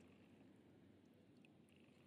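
Near silence: faint low background noise.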